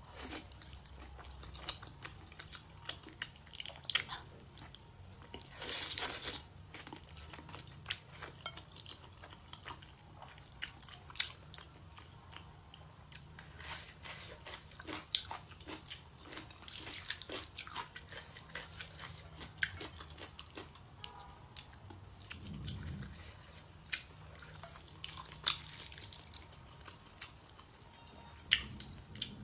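Close-miked chewing and biting of spicy stir-fried rice noodles: irregular wet mouth clicks and smacks, with a few short hissy bursts of noisier eating.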